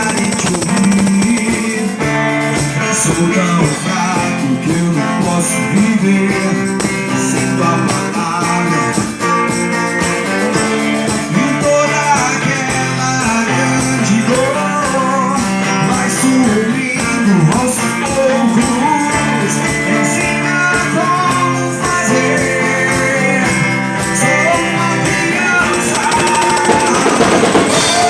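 Band music with guitar and drums playing to a steady beat.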